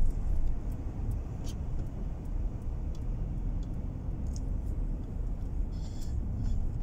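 Low, steady rumble of a car's engine and tyres heard from inside the cabin while it moves slowly, with a few faint clicks.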